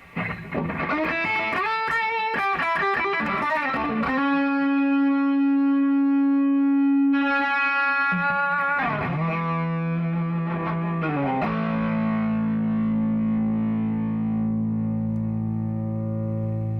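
Electric guitar played through a Dino compressor pedal and a Tube Screamer-style overdrive: a quick run of notes, then single notes and a final chord held for several seconds each with long, even sustain. The sustain comes from the compressor, not from amp feedback.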